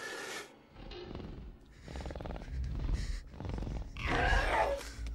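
Velociraptor creature sound effects: short snorts, then a rattling growl about two seconds in, and a loud call about four seconds in.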